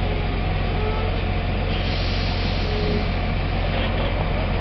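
Heavy truck diesel engine running steadily with a low drone, and a brief hiss about two seconds in.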